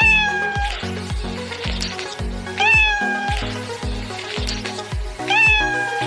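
A domestic cat meowing three times, about two and a half seconds apart, each meow rising then holding its pitch, over background music with a steady beat.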